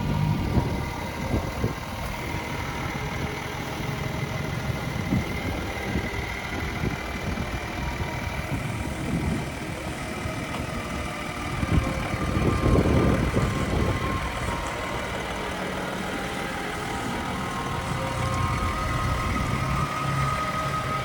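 SUV engine running steadily as it drives over quarry terrain, getting louder for a couple of seconds about twelve seconds in.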